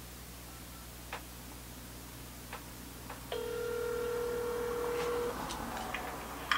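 A smartphone on speaker plays the ringback tone of an outgoing call: one steady ring lasting about two seconds, starting about halfway through. Before it come a couple of light clicks.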